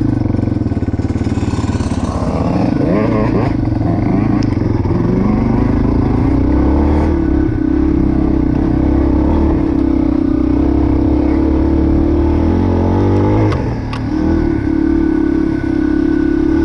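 Yamaha dirt bike engines running hard on a hill climb. The revs rise and fall a few times as the rider works the throttle and shifts, with a brief easing-off about three-quarters of the way through.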